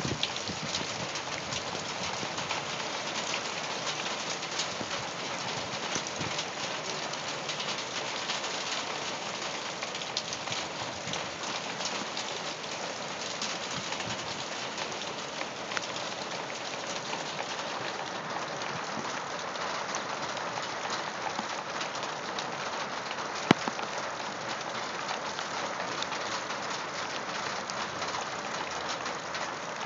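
Torrential downpour falling on gravel stones, a dense steady hiss of drops striking stone. A single sharp click stands out about two-thirds of the way through.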